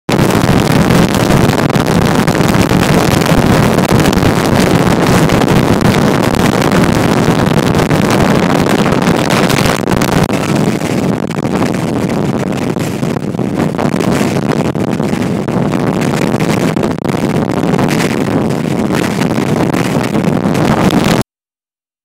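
Strong wind buffeting the microphone: a loud, continuous low rumble of wind noise. It eases slightly about halfway through and cuts off suddenly near the end.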